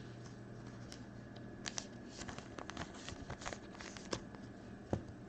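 Trading cards being handled and flicked through, light rustles and card-edge clicks in a loose cluster, over a steady low electrical hum.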